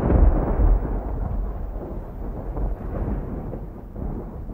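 Strong, gusty wind of an arriving thunderstorm buffeting the microphone: a deep, uneven rumble that swells and eases, loudest in the first second.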